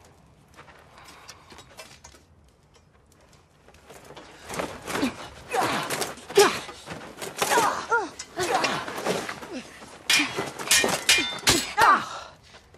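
Swordplay: a longsword and a slender small sword clashing steel on steel in quick exchanges, with metallic ringing and short grunts of effort, starting about four seconds in after a quiet stretch.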